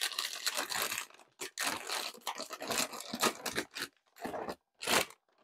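Plastic inner bag of a cardboard cereal box being pulled open: crinkling and tearing in irregular bursts, with a short pause a second or so in.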